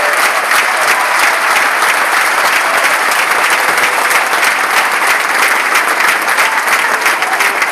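Football stadium crowd applauding: dense, steady clapping from many spectators.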